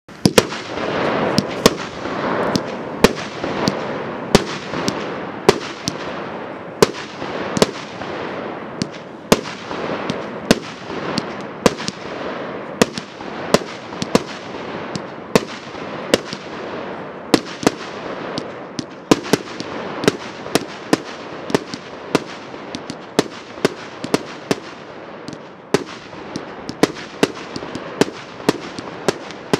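A 49-shot consumer fireworks cake firing: a rapid run of sharp bangs, about one or two a second, over a continuous hiss. It starts abruptly at the beginning.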